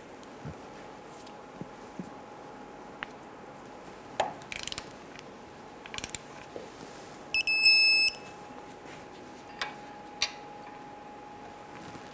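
Digital torque wrench beeping once, high-pitched and under a second long, a little past the middle: the signal that the sway bar end link nut has reached its set torque of 75 ft-lb. Before the beep come a few light metallic clicks of the tools on the fitting, and a faint steady hum runs underneath.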